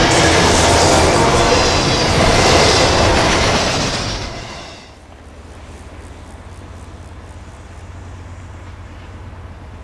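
Freight train rolling past close by, a loud wash of wheel and railcar noise that fades out about four to five seconds in. After that comes a much quieter, steady low rumble of diesel locomotives in the distance.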